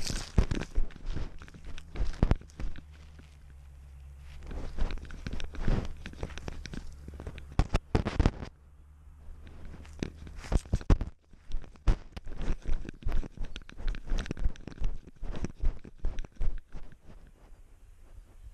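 Close-up rustling and crunching of dry leaves, twigs and grass as a cat pushes through brush on its paws, picked up by a camera worn on the cat, with scrapes of stems and fur against the camera. It comes in crackling spells with short quieter gaps.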